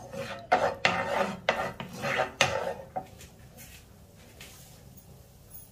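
Wooden spoon scraping and rubbing against a non-stick frying pan, about seven quick strokes in the first three seconds, then only faint small ticks.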